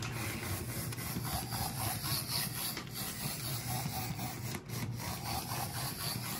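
Motor and gears of a small 0-4-0 model steam locomotive whirring steadily as it runs on the track. It is running badly, the fault the owner puts down to something in the motor or the wheels.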